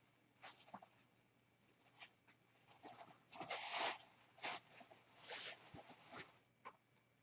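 Short, faint rustling and crinkling of craft materials being handled, in about eight separate bursts, the longest and loudest about three and a half seconds in.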